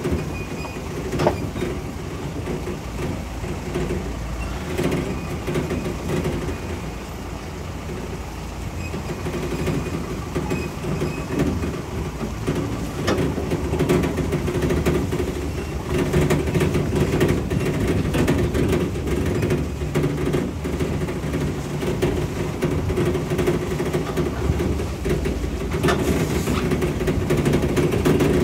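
Vehicle heard from inside the cabin while driving slowly over a rough, muddy dirt track: a steady engine and road rumble with scattered knocks and rattles as it rides over bumps. It grows louder about halfway through.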